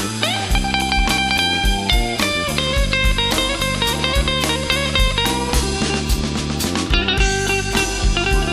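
Live blues band playing an instrumental, an electric guitar lead over bass and drums with a steady beat, the guitar bending a note up right at the start.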